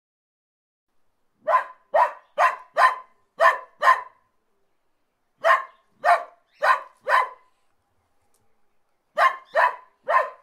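A dog barking in three quick runs: six barks, then four, then three, each bark short, about two a second within a run.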